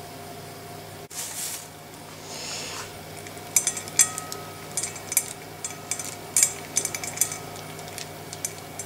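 Pine nuts sprinkled by hand onto a salad in a large bowl: from about three and a half seconds in, a scattered run of light clicks as they land, some leaving a faint ring from the bowl. Earlier, two brief hissy rustles, over a steady low background hum.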